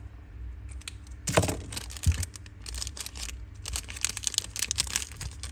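Small hard objects being handled close to the microphone: a knock about a second and a half in, then a dense run of irregular small clicks and crinkling.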